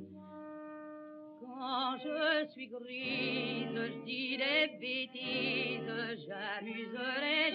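Music: a woman singing with strong vibrato over orchestral accompaniment. A held instrumental chord opens it, and the voice comes in about a second and a half in.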